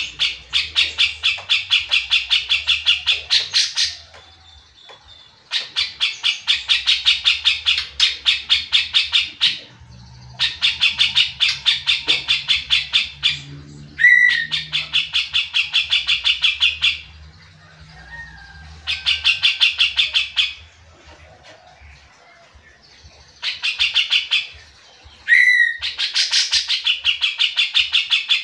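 Grey-cheeked bulbul (cucak jenggot) calling in bouts of fast, rattling chatter of about eight notes a second. Each bout lasts a few seconds, with short pauses between. Twice, about halfway and near the end, a sharp upswept note cuts in.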